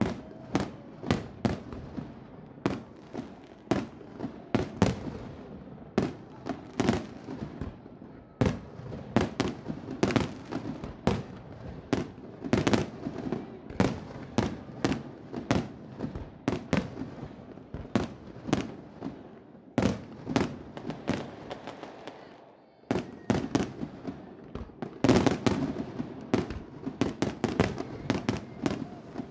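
Fireworks exploding: a steady run of sharp bangs, one or two a second, over a continuous rumble. A brief lull about three-quarters of the way through is followed by a denser barrage.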